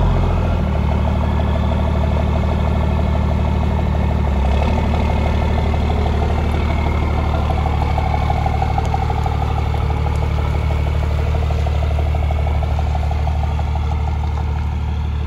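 Home-built mini Western Star-style truck's 450-horsepower engine running at a steady low idle as the truck rolls slowly away.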